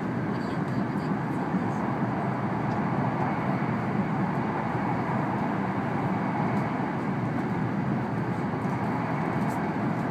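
Steady running noise of an N700-series Shinkansen travelling at speed, heard inside the passenger cabin: an even, unbroken wash of wheel, track and air noise.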